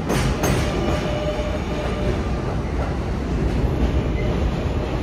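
R188 subway train running through the station. Its wheels click sharply over rail joints at the start, then it settles into a steady, loud rumble.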